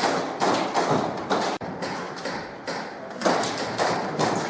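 Irregular thumps and taps, a few a second, with scuffing noise between them: a player's footsteps and gear knocking on the worn camera as they move.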